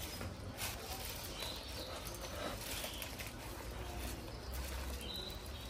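Faint rustling and crinkling of a plastic bag as gloved hands press butter down into it and twist the bag's neck, over a steady low hum.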